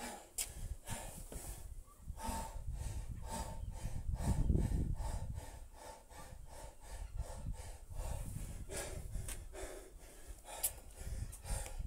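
A man breathing hard in quick, rhythmic breaths, about two to three a second, winded from a set of kettlebell snatches.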